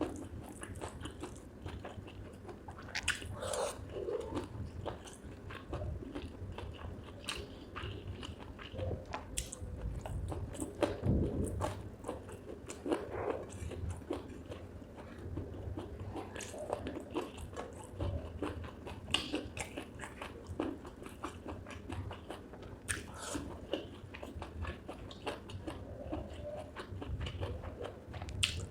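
Close-miked chewing and biting of spicy chicken gizzard with rice: irregular crunches and wet mouth clicks.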